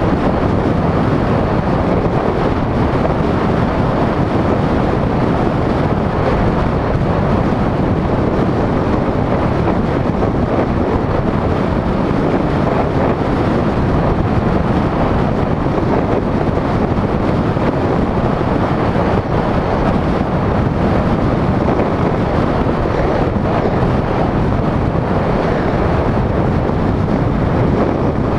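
Steady wind rush buffeting the microphone of a camera moving along a road, mixed with road noise, loud and unbroken throughout.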